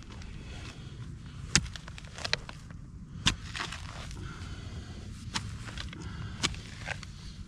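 Digging into soil at a metal-detecting target: a handful of sharp, irregular knocks and scrapes as the tool strikes earth and stones, over a steady low rumble.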